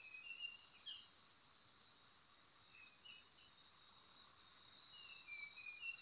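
Steady, high-pitched chorus of insects, crickets or cicadas, in wild forest scrub, with short bird chirps coming in small groups near the start, about halfway through and near the end.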